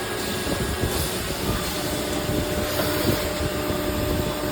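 CNC milling machine cutting an aluminium profile edge: steady, noisy machining sound, joined about a second and a half in by a faint steady whine.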